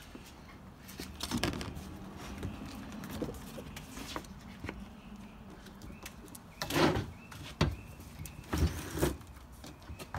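Handling sounds at a hand screen-printing press: a paper print being slid into place on the wooden board, then a few knocks and scrapes as the hinged screen frame is brought down, the loudest of them near the end.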